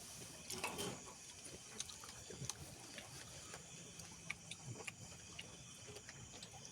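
Faint eating noises: scattered small clicks and taps of chewing and utensils against plates, with no speech.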